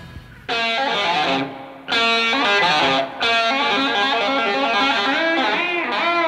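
Background music: a guitar-led instrumental comes in about half a second in, playing a melodic line of notes that bend up and down.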